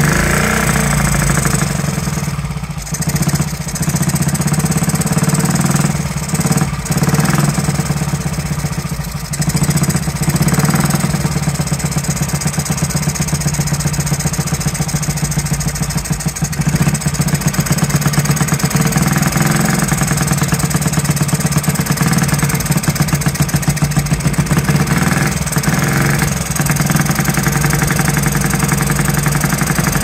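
Honda Z50 minibike's small single-cylinder four-stroke engine running, dipping several times in the first ten seconds or so, then settling into a steady, even beat. It is running rich, with the carburettor needle set too high.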